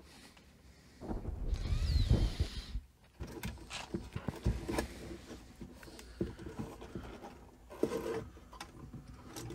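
Handling noise from the amp's metal control chassis and circuit board being worked through the cabinet's opening: a rubbing scrape about a second in, then scattered small clicks and taps.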